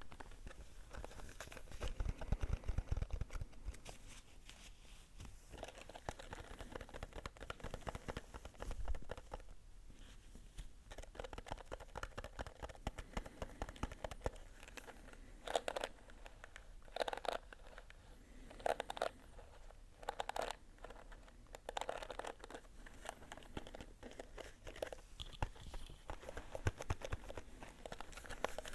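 Close-miked ASMR scratching and crinkling: dense crackly rustling, a few low thuds near the start and a run of louder scrapes about halfway through.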